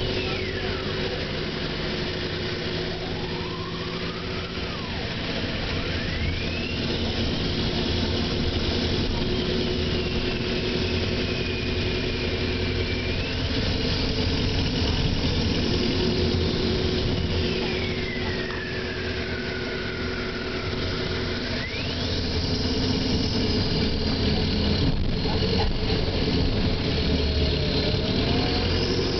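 Optare Solo SR single-deck bus heard from inside while driving: the diesel engine runs with a steady low drone, and a high whine rises and falls several times as the bus changes speed.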